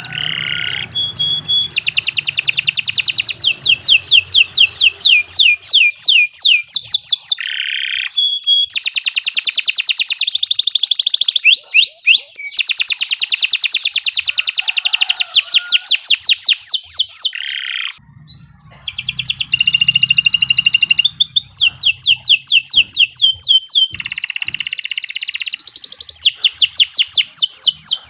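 Domestic canary singing a long, loud song: fast trilled runs of high chirping notes, broken by a few held whistled tones and two brief pauses.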